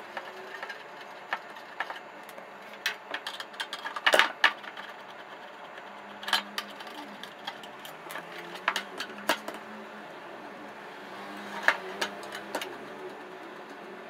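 Screwdriver backing the screws out of a DVR's sheet-metal casing: irregular metallic clicks and scrapes of the tip in the screw heads and the screws turning. The loudest cluster of clicks comes about four seconds in.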